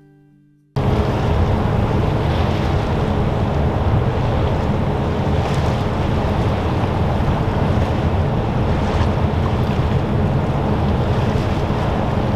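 Wind rush and low rumble on board a moving ferry, starting suddenly about a second in: wind buffeting the microphone over the steady drone of the ship and the wash of the water.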